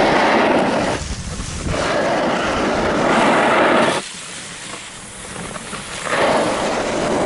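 Dog sled running over packed snow: the runners make a steady scraping hiss. It eases briefly about a second in and goes quieter for a couple of seconds past the midpoint before coming back up.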